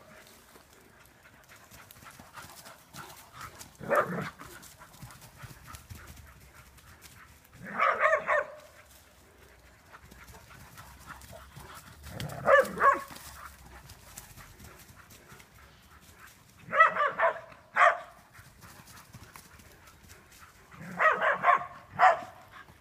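A dog barking in short bouts of two or three barks, repeated about every four seconds.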